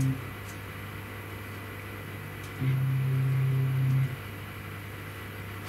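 Stepper motors of an AMAX 3636 CNC router driving an axis on a slowed jog: a steady low whine that stops just after the start, then runs again for about a second and a half in the middle. A faint steady hum lies underneath.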